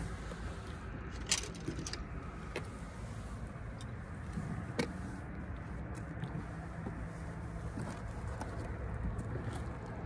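Steady low outdoor rumble with a faint hum, broken by a few sharp clicks about a second, two and a half and nearly five seconds in.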